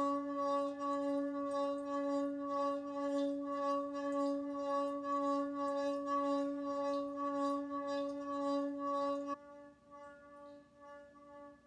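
Stainless steel pot with water, its metal handles rubbed by wet hands, singing like a singing bowl: one steady, held tone with a string of overtones. About nine seconds in it drops suddenly to a faint hum.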